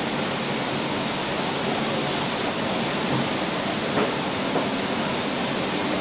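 Steady rush of falling water, a constant even hiss without any rhythm.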